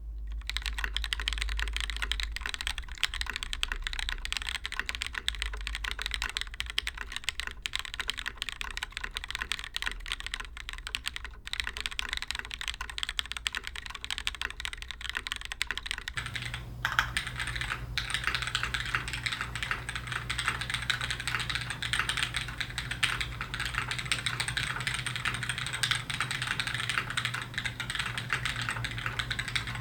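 Continuous fast typing on a custom mechanical keyboard with lubed, polished Cherry MX Black linear switches, an aluminium top-mount plate and DCS keycaps: a dense run of key clacks. About 16 seconds in, the recording switches from a studio condenser microphone to the camera's built-in microphone, which adds a steady low hum and changes the tone of the clacks.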